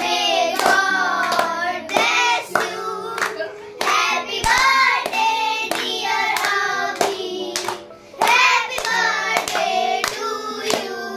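A birthday song sung with hands clapping along as the cake is cut.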